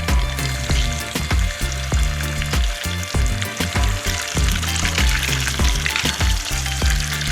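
Whole tilapia frying in hot cooking oil, a steady sizzle, under background music with a steady bass beat.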